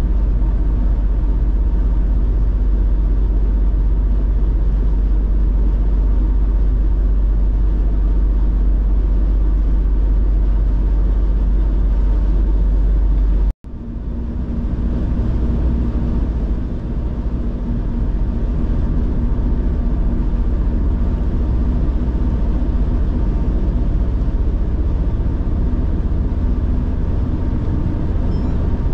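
Steady road noise of a car being driven, with a heavy low rumble. About halfway through the sound drops out for an instant, then resumes with less rumble and a faint steady hum.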